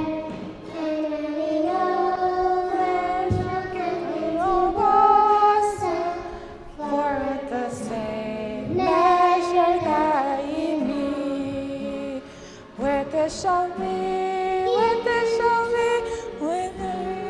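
Children singing a Bible memory-verse song together, in phrases of held notes that step up and down in pitch, with a woman's voice among them.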